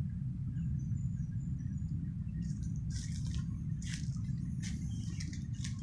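Leaves and branches rustling and scraping as a person climbs a tree: a string of short brushing noises from a little over two seconds in, over a steady low rumble.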